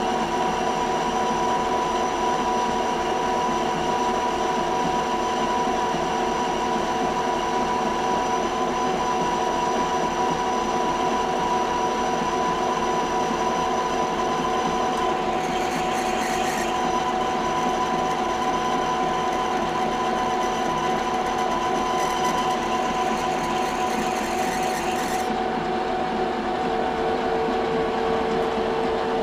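Metal lathe running steadily under power feed while a small boring bar cuts inside the part: an even machine whine of several steady tones, with a higher hiss coming in twice in the second half.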